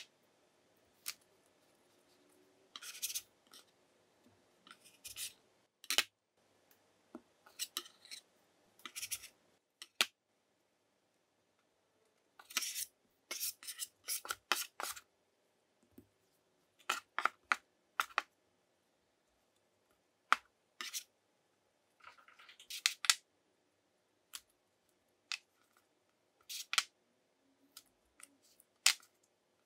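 Baking utensils scraping and cutting through scone dough or flour, in scattered short strokes and clusters with pauses between them.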